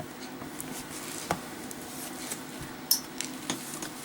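A few light clicks and taps from a boxed Zippo lighter and its box being handled, over a steady low hum.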